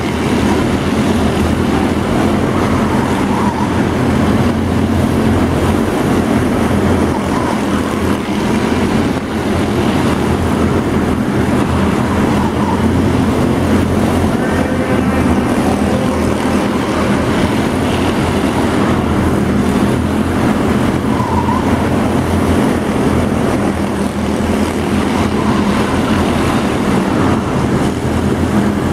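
A pack of small stock-car-style race cars running flat out around a tight indoor arena track, their engines making a constant, loud din.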